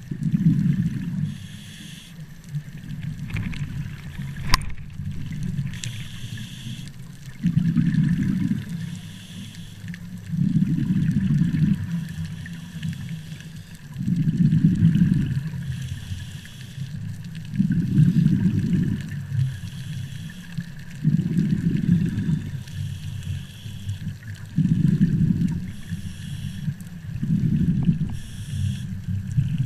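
Scuba diver breathing through a regulator underwater: a hiss on each inhale and a low burst of bubbling on each exhale, the cycle repeating every three to four seconds. One sharp click about four and a half seconds in.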